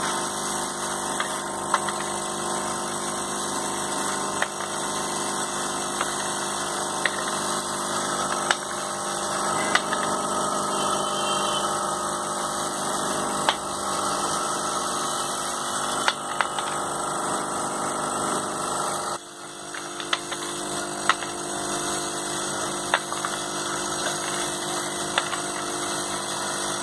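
Vibratory bowl feeder running: a steady electromagnetic hum with small metal parts rattling in the bowl, and occasional sharp clicks. The hum briefly drops away about two-thirds of the way through.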